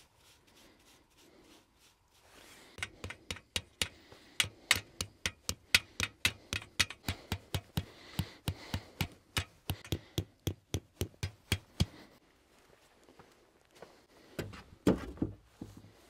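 A quick, even run of sharp knocks, about four a second for some nine seconds, like repeated hammer or tapping blows. A single heavier, deeper thump follows near the end.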